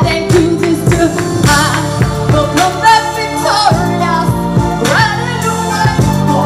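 Gospel song with a woman singing over a backing track with a steady beat.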